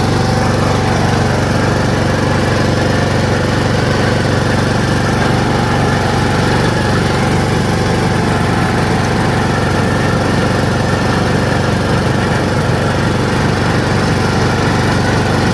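Riding lawn mower's engine running steadily while the mower drives along a road, with a constant loud drone.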